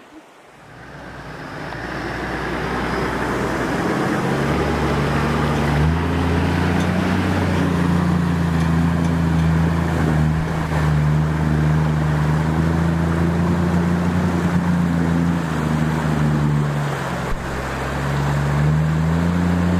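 Toyota LandCruiser 80 Series engine pulling steadily through a creek crossing, with water rushing and splashing around the wheels. The sound fades in over the first few seconds, and the engine revs rise near the end.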